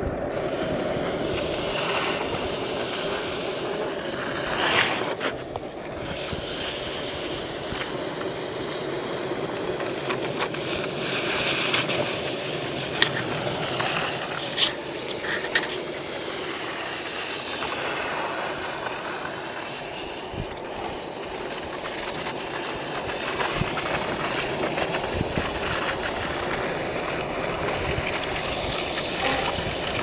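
Skateboard wheels rolling fast on asphalt, with wind rushing over the microphone: a steady rolling hiss with a few sharp clicks about halfway through.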